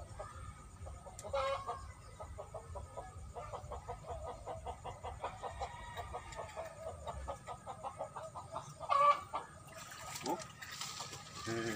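Chickens clucking, with two louder squawks about seven seconds apart.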